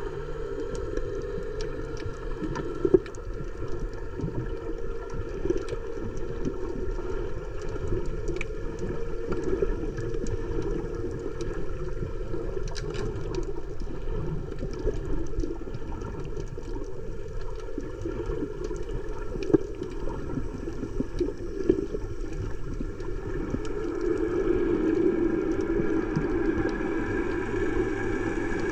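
Underwater ambience picked up by a camera in its waterproof housing: a steady, muffled water rumble with scattered faint clicks and a few sharper knocks, the loudest about three seconds in.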